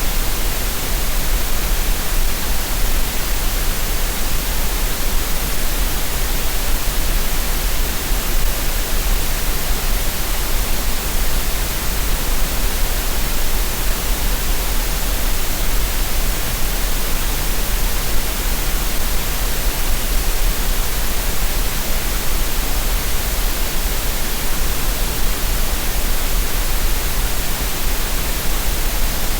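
Continuous synthetic green noise for relaxation and tinnitus masking: an even, unchanging hiss with a low rumble underneath.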